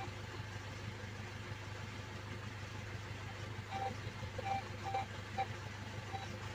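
Metal detector giving a series of short beeps from about halfway through, as its coil is swept up the pit wall, over a steady low hum like an idling engine.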